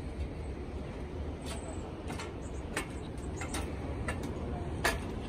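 Footsteps climbing steel grate stairs: sharp taps of shoes on the metal treads, irregular, about one every half second to a second, the loudest near the end, over a low steady rumble.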